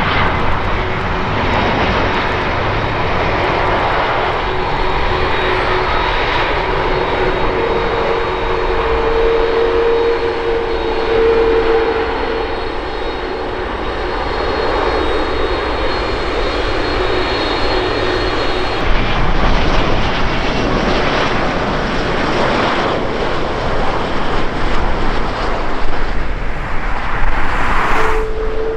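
Engine noise from an Airbus A330-900 (A330neo) airliner's turbofans as it touches down and rolls out on the runway. There are a few steady humming tones within the engine noise. The sound changes with a cut partway through, and near the end another A330-900 touches down.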